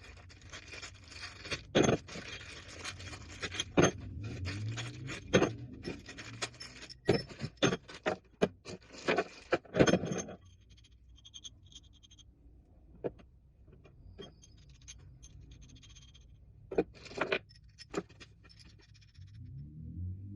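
Steel carriage bolts and a nut being handled: repeated metallic clinks, knocks and scrapes, busiest in the first half, with a low hum rising near the end.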